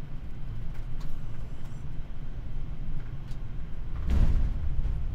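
Steady low cockpit rumble of a Boeing 787-9 in the flare, then about four seconds in a sudden thump and heavier rumble as the main landing gear touches down on the runway.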